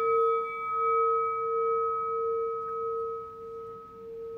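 A struck meditation bell rings out with one clear mid-pitched tone and fainter higher overtones. It fades slowly with a gentle waver in loudness.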